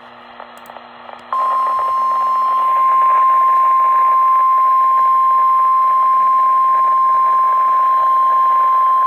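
NOAA Weather Radio warning alarm tone: one steady, unbroken high tone over radio static. It starts about a second in, after faint hiss, and keeps sounding, marking the start of a severe weather alert broadcast.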